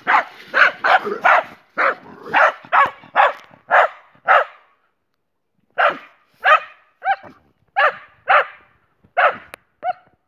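Dogs barking in play: a quick run of loud barks at about three a second, a pause of about a second near the middle, then more spaced barks, some with a rising-and-falling yelp.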